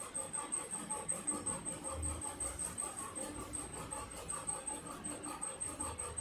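Quiet ambient electronic background music: a soft pulsing drone with a rapid, high-pitched beeping pulse over it.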